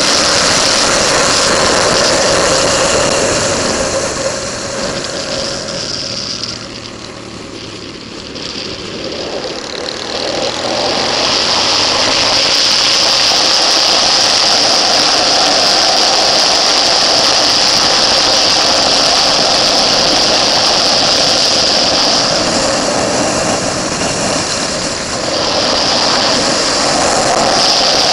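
Onboard sound of a motorcycle engine at speed on a race track, with wind rushing over the camera. It eases off about 4 seconds in, as for braking into a corner, picks up again under acceleration around 10 seconds in, and backs off briefly once more about 22 seconds in.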